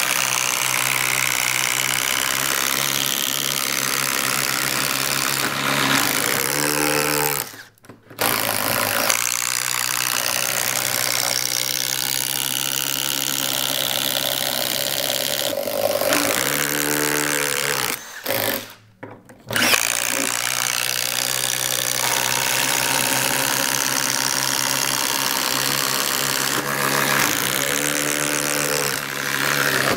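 Two Milwaukee M18 FUEL cordless impact drivers running together under load, boring blind holes into a wooden beam with impact-ready auger drill bits. The drilling stops briefly about 8 s in and again around 19 s, with the pitch of the motors sweeping just before each stop.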